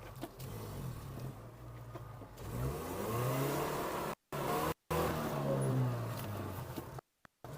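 2009 Liebao 4x4's 2.4-litre engine revving up and down under load while driving in four-wheel drive. The sound cuts out completely three times for a moment.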